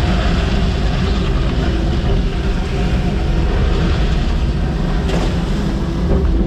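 Diesel engine of a piece of earthmoving equipment running steadily while grading dirt.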